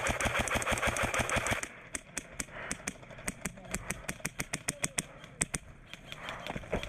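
Airsoft electric rifles firing full-auto, a fast rattle of about ten clicks a second. It is loud for about the first second and a half, then thins to scattered, fainter bursts, with a few more near the end.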